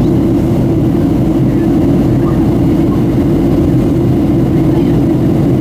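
Steady cabin rumble of a Boeing 737-700 in flight, the drone of its CFM56 turbofans and the airflow heard from inside the passenger cabin, low and unbroken.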